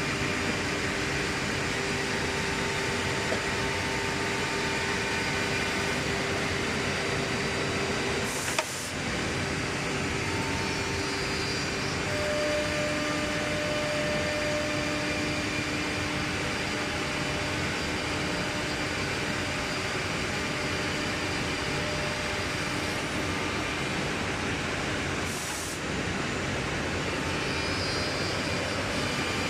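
Six-sided CNC drilling and milling machine running: a steady mechanical hiss with the spindle's steady tones, which change pitch a couple of times as it works. Two brief breaks in the sound, about eight seconds in and again near the end, each with a short high hiss.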